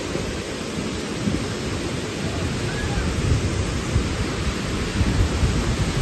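A large waterfall pouring: a steady rush of water noise with a deep, uneven rumble underneath.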